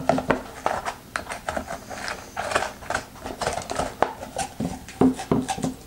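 Serrated core spoon cutting and scraping the seeds and membrane out of a green pepper: a run of short, irregular clicks and scrapes.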